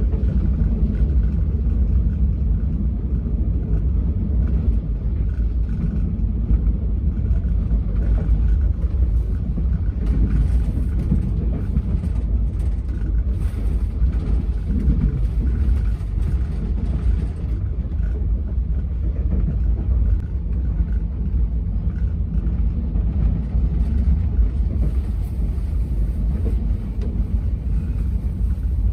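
Steady low rumble of the New Delhi–Banaras Superfast Express under way, its wheels running on the track, heard from inside the first-class AC coach through the closed window.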